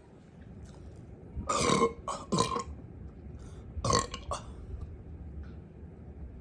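A person burping: several short burps in two bunches, three about a second and a half in and two more about four seconds in.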